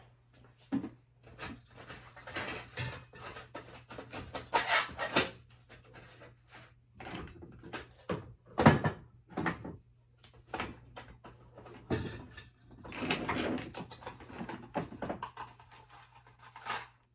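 Irregular knocks, clinks and scraping of small objects being handled and rummaged through on a workbench, with a steady low hum underneath. The handling stops abruptly near the end.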